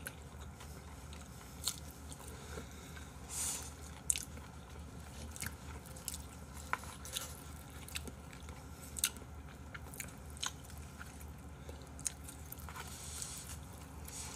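Close-miked eating sounds: chewing and biting on smoked duck barbecue, with scattered small clicks and taps of chopsticks on a bowl, over a low steady hum.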